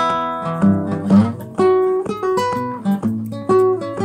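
Background music: acoustic guitar, a quick run of plucked notes and chords.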